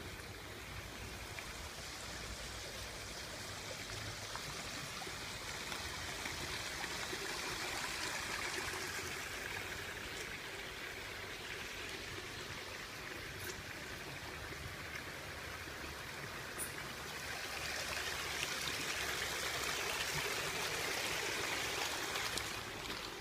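Water running and trickling in a shallow stream, a steady rushing sound that swells a little twice.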